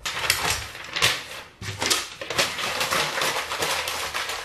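Paper posters being ripped down from a kitchen cabinet and crumpled: a dense, irregular run of crackling and rustling.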